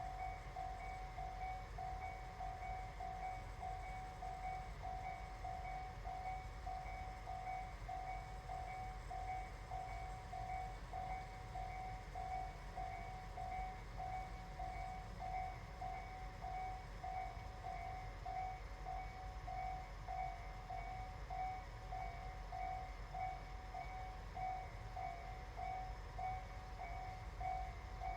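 Japanese railway level-crossing warning bell ringing steadily, an electronic clanging tone repeating a little under twice a second, over a low steady rumble.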